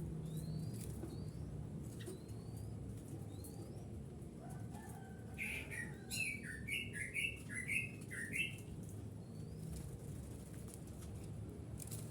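Birds calling: faint, short rising chirps here and there, and just past the middle a quick run of about seven falling notes, the loudest sound.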